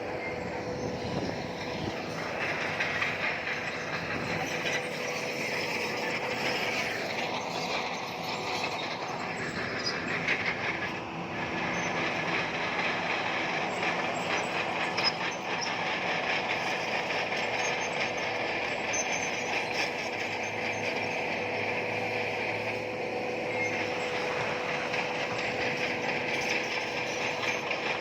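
Bulldozer working, its diesel engine holding a steady tone under dense, continuous clatter from its steel crawler tracks.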